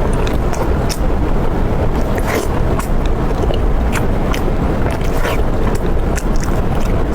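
Close-miked chewing and biting, with short crackly clicks scattered through it over a steady low rumble.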